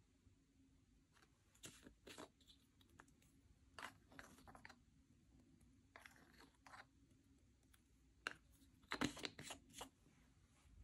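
Slime being mixed, giving scattered faint sticky crackles and pops, with a louder cluster about nine seconds in.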